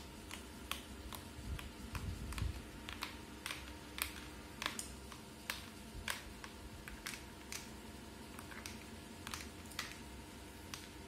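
Drinking straw stirring dalgona coffee in a stemmed glass, mixing the whipped coffee foam into the milk, with small irregular clicks against the glass about two or three times a second.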